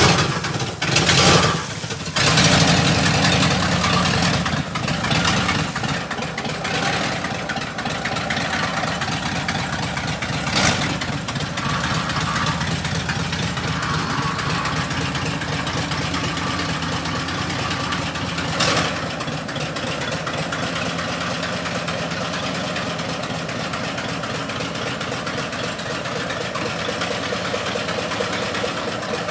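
A large engine catches after a couple of seconds of uneven bursts, then idles steadily. Two short knocks cut through, about 11 and 19 seconds in.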